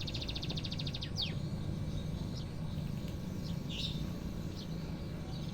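White-rumped shama calling: a quick falling whistle and then scattered short high chirps and whistles. A rapid pulsing trill stops about a second in. A steady low hum runs underneath.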